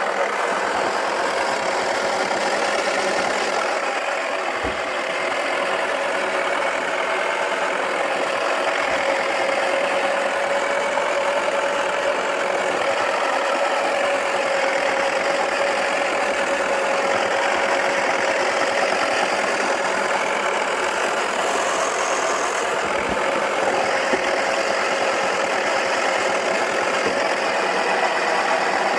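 Wacky Washer toy washing machine's small electric motor running steadily, spinning its drum with a whir that holds one pitch.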